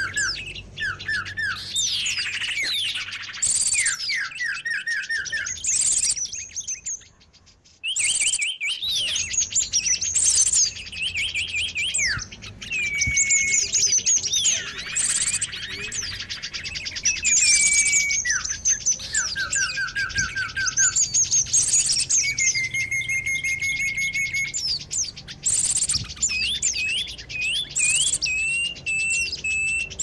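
Bird-lure recording of many small birds chirping, trilling and calling over one another, a busy chorus of high, quick notes and rapid trills. It drops out for about a second around seven seconds in, then carries on.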